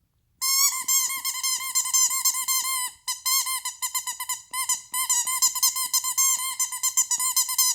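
Dog's squeaky toy squeaked rapidly and continuously, many short squeaks a second at one fixed pitch, with brief breaks about three seconds in and again near five seconds.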